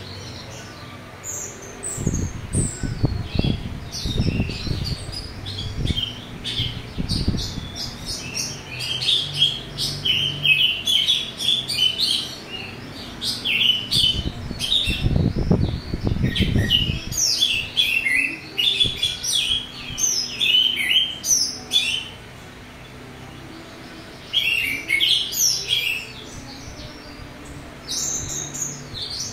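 Orange-headed thrush (anis merah) singing loudly and continuously: quick runs of high chirping phrases with rough, harsh fill-ins, breaking off for a couple of seconds about two-thirds of the way through. Twice, about two seconds in and again near the middle, a low rumbling rustle runs beneath the song.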